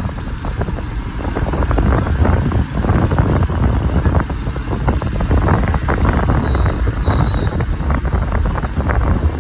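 Wind buffeting the microphone during a scooter ride, over the low rumble of the scooter and the road, in a steady gusty rush.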